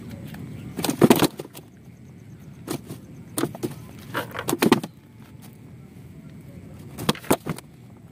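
Fishing rod and spinning reel being handled: clusters of sharp clicks and knocks, the loudest about a second in, with more clatter around the middle and near the end.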